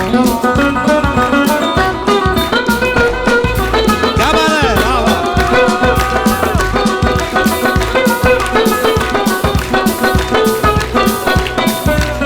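Sarod playing a popular Indian wedding-band tune over a fast, steady drum beat with band accompaniment, with sliding notes about four to five seconds in.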